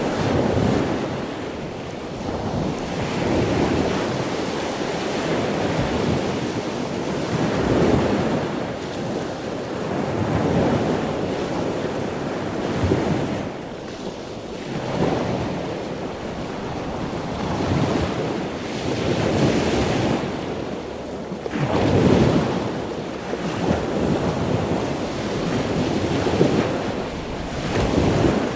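Ocean surf: a continuous rush of breaking waves that swells and falls back every few seconds.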